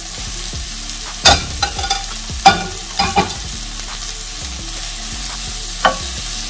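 Onion and red bell pepper sizzling in oil in a skillet as ground chicken is tipped in and stirred through with a wooden spoon. The steady sizzle is broken by several sharp knocks against the pan, the loudest about one and two and a half seconds in.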